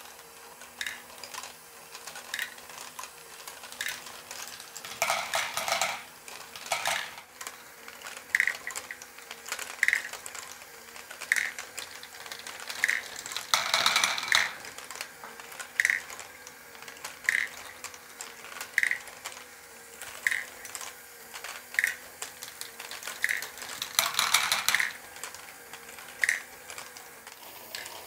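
Lego Great Ball Contraption rocking-platform module running: plastic balls rolling and clattering on the tilting platform in three louder bursts, over a light regular click about every one and a half seconds and a faint steady motor hum.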